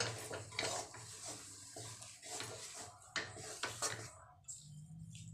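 A wooden spatula stirring and scraping a thick mashed-potato mixture around a non-stick kadhai, with irregular scrapes and a couple of sharper knocks against the pan about three seconds in.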